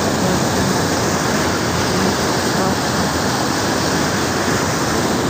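Water pouring over an old dam's spillway: a steady, loud rush.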